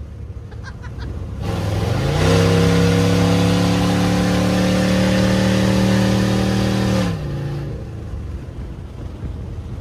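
V8 truck engine idling, then revved up about two seconds in and held at high revs for about five seconds, its pitch creeping slightly higher, before it drops back to idle.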